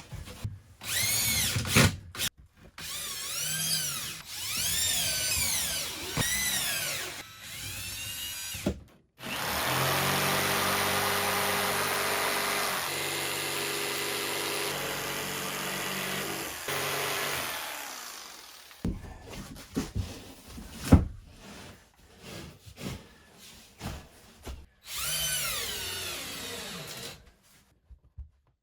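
Power drill run in a series of short bursts, its pitch rising and falling as the trigger is squeezed and let go, with one longer steady run in the middle. Clicks and knocks in between.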